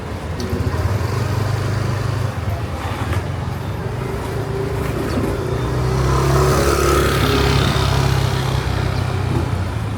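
A motor vehicle's engine running close by in street traffic, with a steady low drone. It grows louder about six seconds in as a vehicle passes with a rush of road noise.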